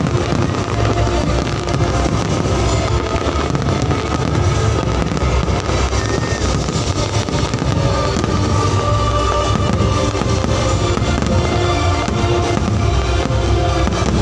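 Fireworks bursting overhead in a dense stream of pops and crackles, with music playing at the same time.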